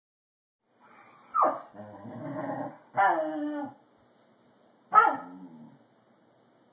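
Dog vocalising: a sharp yelp about a second and a half in, a rough growl, a longer drawn-out bark, then one more sharp bark about five seconds in.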